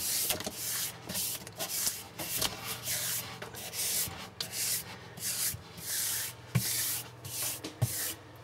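Stiff paintbrush spreading matte varnish over a vivarium's painted back wall: repeated swishing brush strokes, about two or three a second.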